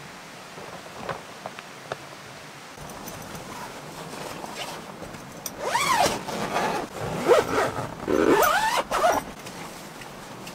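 Zipper on a tent's window cover being pulled along in several long rasping strokes whose pitch rises and falls, the loudest stretch starting about five and a half seconds in. A few light clicks come about a second in.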